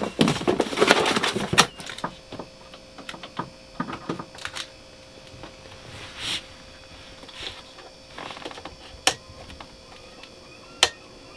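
Handling of new plastic space heaters and their cardboard packaging: dense rustling and clicking for the first couple of seconds, then scattered light knocks and a few sharp clicks as a heater is set down on the floor, over a faint steady hum.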